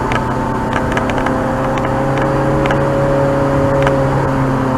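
Ferrari 430 Scuderia's naturally aspirated 4.3-litre V8 running at a steady cruise, heard from inside the cabin over tyre and road noise. The engine note rises slightly midway and eases back, with a few light ticks.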